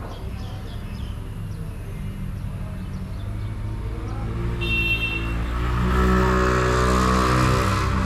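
Road traffic: a vehicle's engine rumbling and growing louder as it approaches, loudest in the second half. A short high beep sounds just before the middle.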